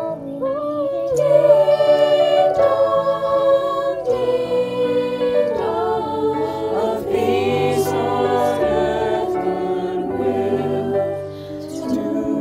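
High school choir singing in parts: a virtual choir of separately recorded voices mixed together, with held low notes underneath the melody.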